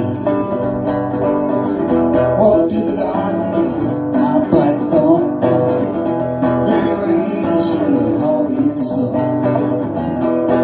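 Harmony archtop electric guitar with a P-90 pickup, played steadily through Mackie Thump 12A powered PA speakers, with notes ringing continuously.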